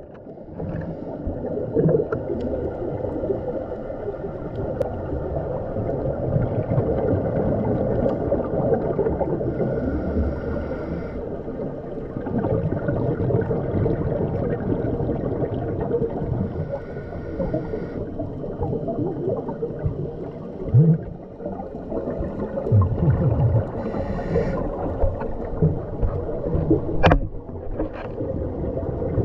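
Muffled underwater sound of scuba diving: a diver breathing through a regulator, with rumbling, gurgling bubbles from the exhalations and short stretches of hiss from the inhalations.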